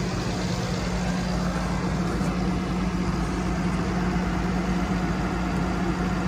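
An engine idling steadily, with an even low hum and no change in speed.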